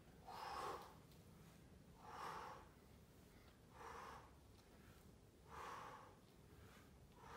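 A person breathing hard, five audible breaths evenly spaced about one every second and a half to two seconds: catching their breath from the exertion of squats.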